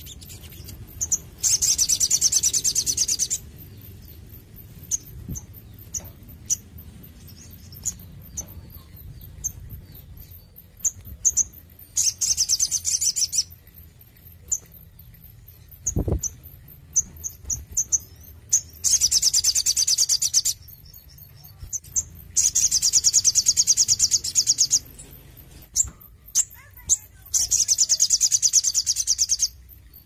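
Caged male sunbird singing: five loud, fast trilled phrases of about two seconds each, with short single chirps between them. A single low thump comes about sixteen seconds in.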